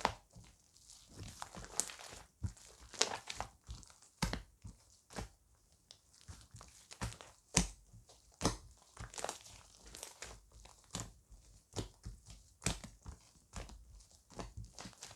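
Chocolate-coloured slime being squished and stretched by hand: irregular sharp crackles, clicks and small pops.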